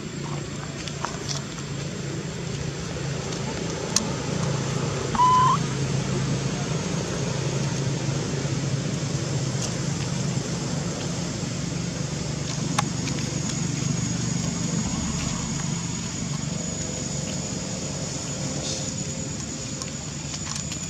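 A steady low hum, like a motor running, under a thin steady high whine, with a short high squeak about five seconds in and a few sharp clicks.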